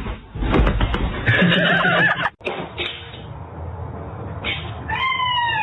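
A cat meows once near the end, a short call falling in pitch. Before it come indistinct knocks and rustling, like a door or cupboard being moved.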